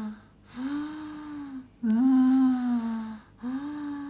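A woman's voice making drawn-out buzzing 'zzz' sounds in imitation of snoring: the tail of one at the start, then three more, each a little over a second long.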